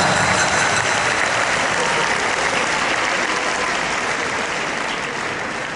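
Large theatre audience applauding, the applause gradually fading away.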